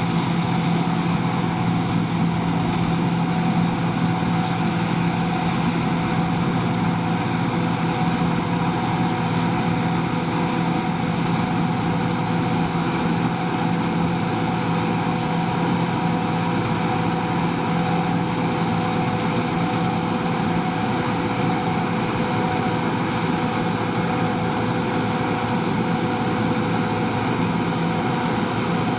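John Deere 2258 combine harvester running steadily under load, its engine and threshing machinery making an even hum with constant whining tones.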